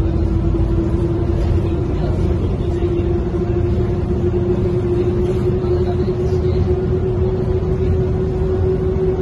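A 1998 Mercedes-Benz O405N2 city bus with a ZF Ecomat 5HP automatic gearbox driving along, heard from inside the passenger cabin: a low engine rumble under a steady drivetrain whine that slowly climbs in pitch as the bus picks up speed.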